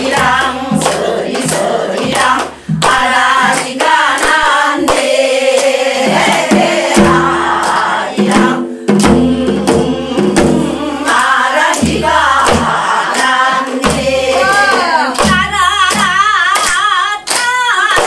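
A group of older women singing a Korean folk song (minyo) together and clapping along, accompanied by a buk barrel drum.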